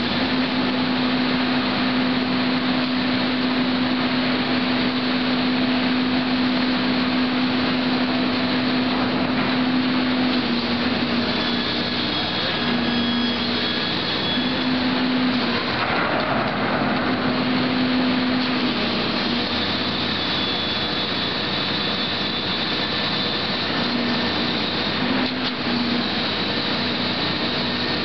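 MKT V-5Esc excavator-mounted hydraulic vibratory hammer clamped to a steel pile and vibrating it into the ground: a loud, steady machine drone with a strong hum that drops in and out now and then in the second half, over the excavator's engine and hydraulics.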